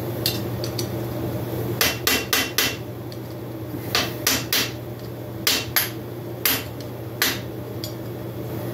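Hammer tapping a screwdriver set in the slot of a motorcycle's exhaust pipe ring nut, knocking the threaded ring round to loosen it where it screws into the cylinder: about a dozen sharp metal-on-metal taps, mostly in quick pairs and threes.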